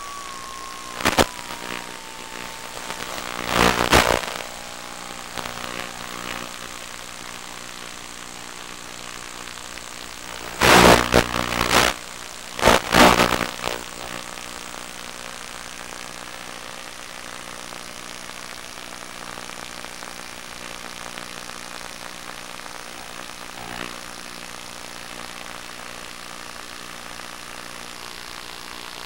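Electric motor and propeller of an FPV radio-controlled plane, its whine falling in pitch over the first few seconds as the throttle is cut, then a steady low hum while it descends on little power. Short, loud rushes of noise break in about one, four, eleven and thirteen seconds in.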